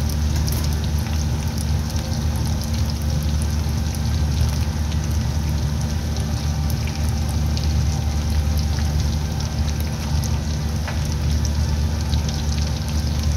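Chicken frying in deep hot oil in a karahi: a steady sizzle with scattered crackles over a steady low hum.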